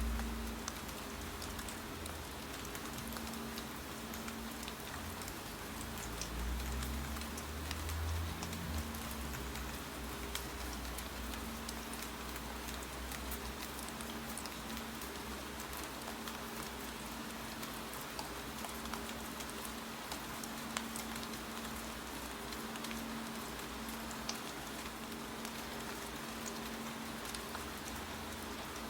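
Steady rain falling, with many small sharp clicks scattered throughout. A low rumble swells about six to nine seconds in.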